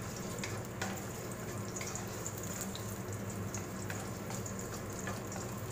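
Chopped garlic sizzling in hot oil in a wok, stirred with a wooden spatula that taps against the pan a few times.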